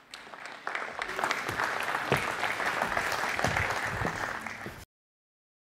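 Audience applauding, a dense patter of many hands clapping that builds up over the first second and then cuts off suddenly after about five seconds.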